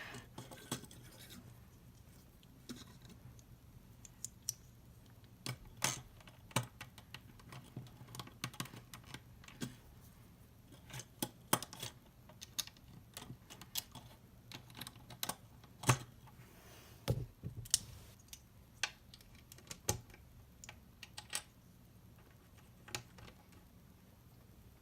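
Plastic Lego bricks clicking as pieces are handled and pressed together, in scattered, irregular sharp clicks.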